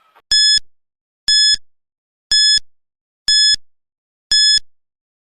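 Countdown-timer sound effect: five short, high-pitched electronic beeps, one a second, counting down the time to answer a quiz question.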